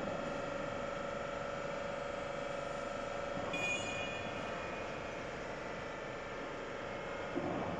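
Electric screw jack system running: the drive motor and linked worm-gear screw jacks give a steady, even hum while the lifting screws travel. A brief high-pitched squeal comes about three and a half seconds in, and a short knock near the end.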